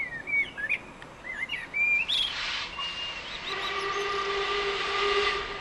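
Birds chirping, then the steam whistle of LMS Princess Coronation Pacific 46233 Duchess of Sutherland: a rush of steam about two seconds in, then a steady whistle chord held for about two seconds before it stops.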